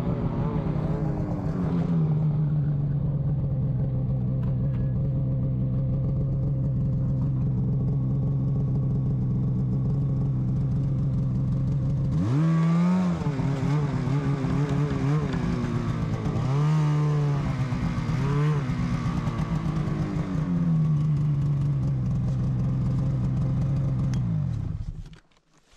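Snowmobile engine idling steadily, with a handful of quick throttle blips in the second half that rise and fall in pitch, then it cuts off near the end.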